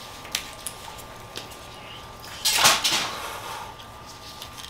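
Boiled crab leg shells being cracked and broken apart by gloved hands: a few small clicks, then a louder crackling snap about two and a half seconds in.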